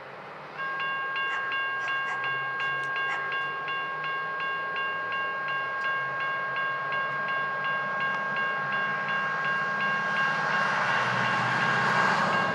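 Railroad crossing warning bell starts about half a second in and rings in a fast, even repeat. Near the end the rumble of an approaching train rises beneath it.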